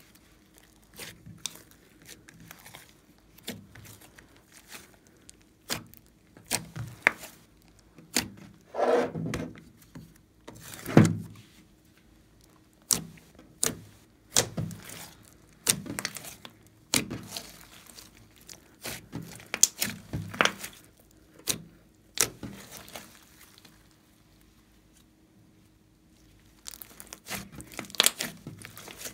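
Glossy slime being pressed and squeezed by hand: irregular sticky clicks and pops, with two longer, louder squelches about a third of the way in.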